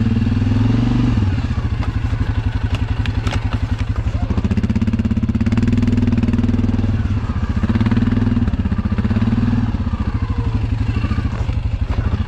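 Single-cylinder ATV engine running at low revs with an even, pulsing putter.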